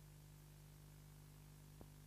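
Near silence: a faint steady hum and hiss, with one faint click near the end.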